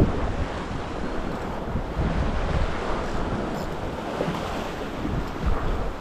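Sea surf washing against the jetty rocks, a steady rushing wash with wind buffeting the microphone.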